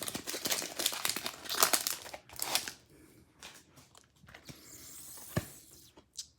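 Foil booster-pack wrapper crinkling and being torn open, busiest for the first two and a half seconds, then softer rustling with a single sharp click near the end.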